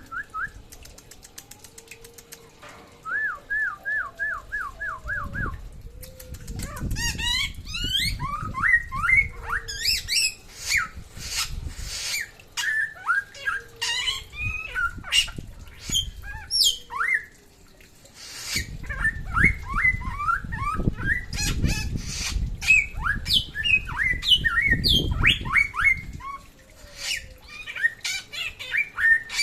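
A samyong songbird singing continuously: quick repeated trills, then a long varied run of short slurred whistles, rising and falling. The bird is in full, constant song (gacor). Low rumbling noise comes under the song twice.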